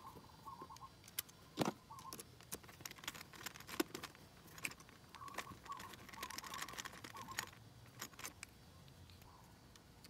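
Small metallic clicks and taps of a screwdriver and knife blade working a bolt and nut into a motorcycle-type battery's negative terminal, two of them sharper knocks. A bird chirps in short runs around the start and again midway.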